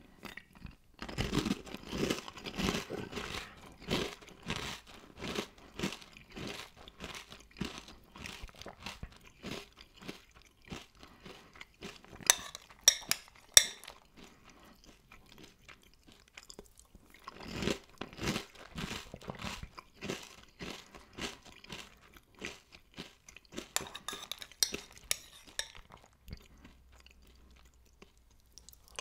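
Close-up chewing and crunching of crunchy breakfast cereal, coming in bursts with pauses between them. About halfway through there are a few sharp, louder clicks.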